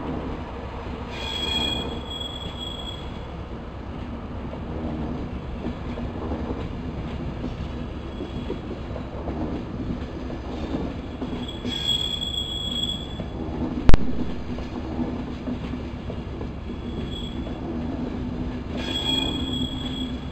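Passenger coaches rolling slowly past with a steady low rumble, their wheels squealing in three short high bursts spread through the passage. About two-thirds of the way through there is one sharp knock, the loudest sound of the stretch.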